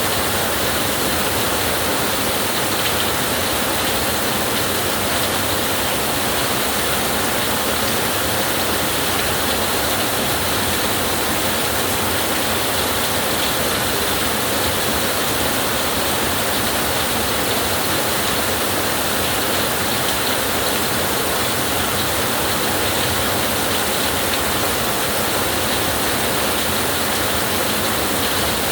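Steady heavy rainfall, a dense even hiss with no distinct drops or thunder standing out.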